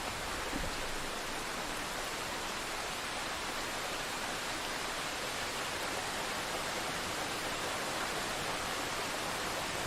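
Steady hiss of heavy rain from a thunderstorm sound effect, even and unbroken with no thunder in it.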